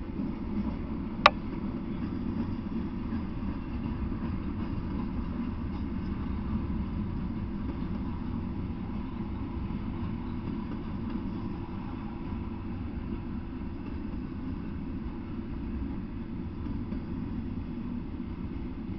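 Double-stack intermodal freight train rolling past, a steady low rumble of wheels on rail, with one sharp click about a second in.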